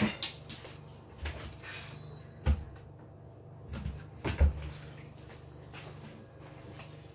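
Wooden kitchen wall-cupboard door being opened and shut, with a few footsteps and knocks. The loudest thuds come about two and a half and four and a half seconds in.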